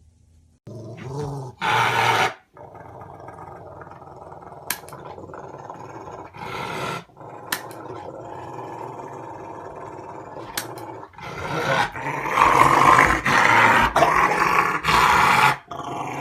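A dog growling, quieter through the middle and louder from about eleven seconds in.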